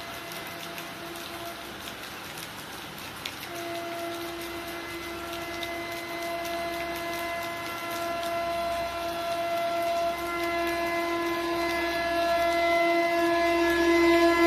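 Locomotive air horn sounding a long, unbroken blast. It is faint at first, grows strong about three and a half seconds in, and gets steadily louder through to the end as the train approaches.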